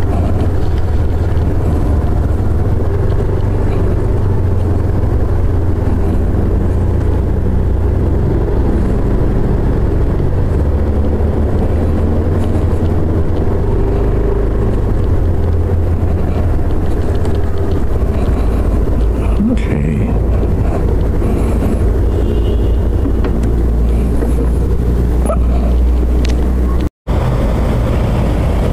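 Motorcycle engine running while riding slowly, with steady low noise; the sound cuts out for a moment near the end.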